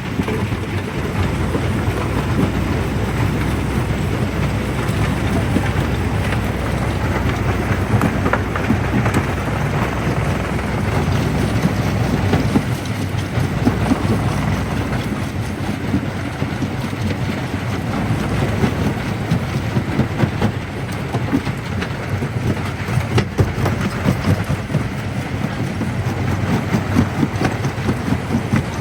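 Primary jaw crusher running under load: a steady low rumble with dense, irregular cracking and clattering of rock being broken in the jaws.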